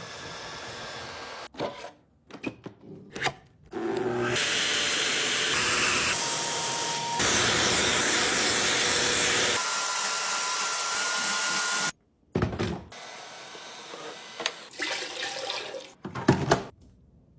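Robot vacuum cleaner running, heard in several short segments that cut in and out abruptly; the longest and loudest stretch, in the middle, is a steady motor and suction hiss with a couple of faint steady tones.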